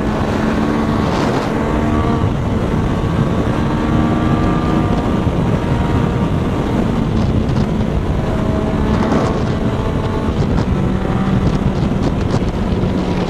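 Motorcycle engine running at a steady cruising speed, with small rises and falls in pitch, under wind noise on the microphone.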